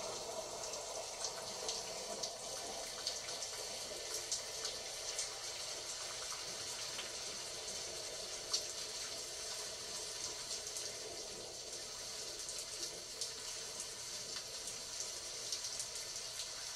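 Steady rain ambience: an even hiss of falling water sprinkled with many small, scattered drop ticks.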